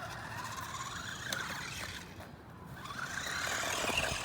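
Electric motor of a radio-controlled car whining as it speeds up, its pitch rising near the start and again about three seconds in.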